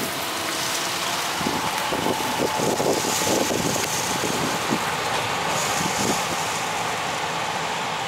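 Farm machinery running: a John Deere 9410R tractor hauling a Brent 1082 grain cart over corn stubble as it moves away, with a Case IH 9240 combine harvesting corn in the distance. Steady machinery noise with a faint steady whine.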